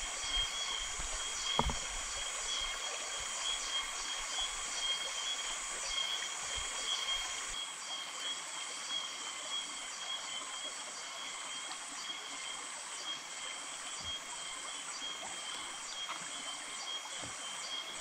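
Steady, high-pitched chorus of insects in subtropical forest: a continuous shrill whine with a dense hiss above it. A single soft knock comes about one and a half seconds in.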